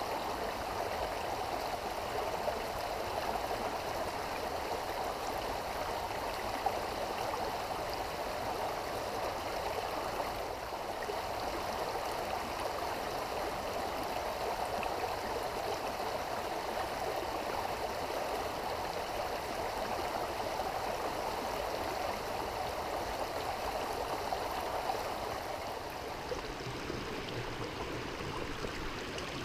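Shallow mountain creek running over rocks: a steady rush of water, slightly softer for the last few seconds.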